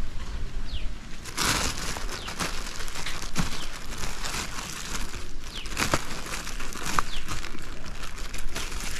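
Thin blue plastic bag crinkling and rustling as hands fold it around a ball of wet soil on a mango branch, wrapping an air layer. The crinkling starts about a second and a half in and goes on in uneven handfuls.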